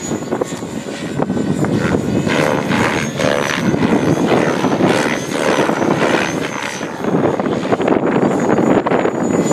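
Radio-controlled HK600 600-size helicopter flying hard, its rotor blades whooshing and swelling and fading in loudness with each manoeuvre, over a thin high whine that wavers in pitch.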